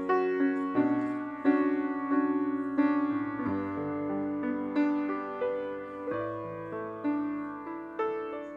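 Grand piano playing the instrumental introduction to a song: a melody over chords, each note struck and left to ring and fade.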